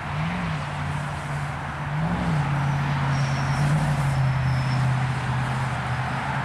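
A steady, low engine drone over a broad rushing noise like road traffic. The drone rises briefly in pitch twice, once near the start and once about two seconds in, and the sound grows a little louder from there.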